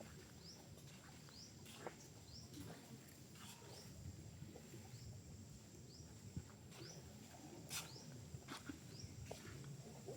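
A bird repeats a short, high, rising note about once a second, faint, over a low rumble with scattered soft clicks and taps.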